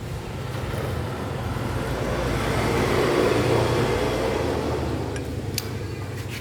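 A motor vehicle engine passing by, its sound swelling to a peak about three seconds in and then fading away.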